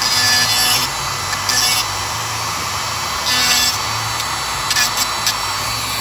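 Dremel rotary tool running steadily with a small grinding stone, grinding a small steel part in several brief hissing bursts as the stone touches down. It is taking metal off a Ford Model A horn-rod spider so the C-clip will seat in its pocket.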